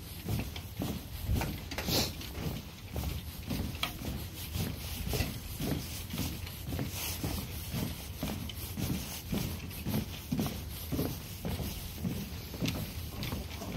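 Footsteps of a person walking at a steady pace, about two steps a second.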